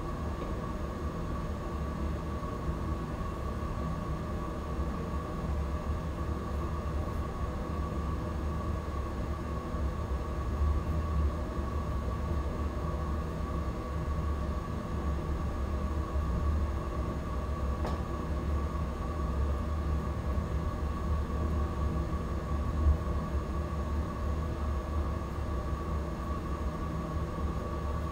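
Steady low mechanical rumble with a constant mid-pitched hum, unbroken throughout, with a single small knock about 23 seconds in.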